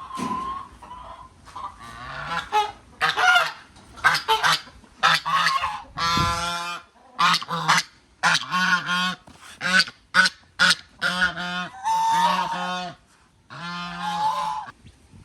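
Farm waterfowl calling over and over: a loud series of pitched, nasal calls, some short and clipped and some held for about a second.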